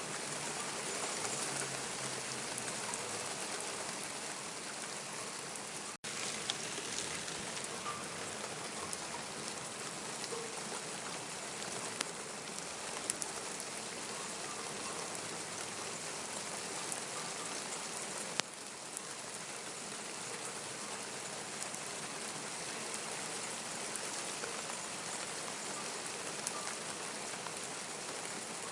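Steady rain falling, an even hiss with a few sharper drop clicks now and then. The sound cuts out for an instant about six seconds in.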